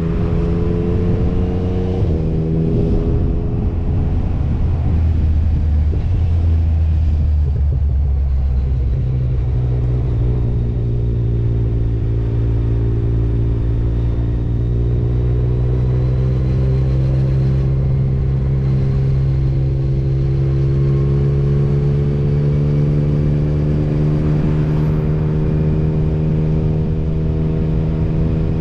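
Motorcycle engine running under way; its pitch drops sharply about two seconds in and sinks lower, then rises again gradually and holds steady.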